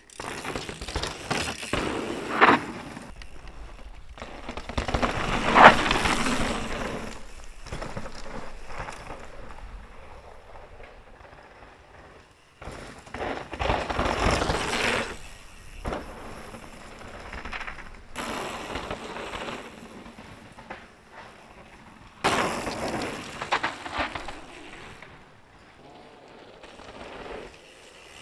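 Mountain bike passing on a dry, dusty dirt trail: tyres rolling and skidding over loose dirt and rock, several passes that each rise and fade, with a few sharp knocks as the bike lands off drops.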